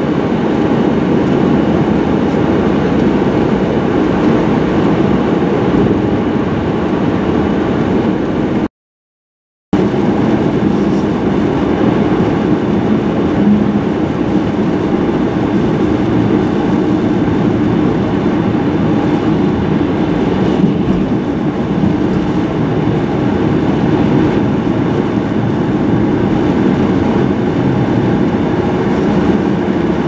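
Steady engine and tyre noise of a car driving on a snow-covered road, heard from inside the car. The sound drops out completely for about a second roughly a third of the way in.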